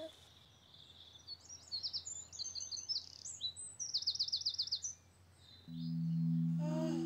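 Songbirds chirping, ending in a quick trill of about ten repeated high notes, over a faint outdoor background. Nearly two seconds before the end a steady low musical chord comes in and holds.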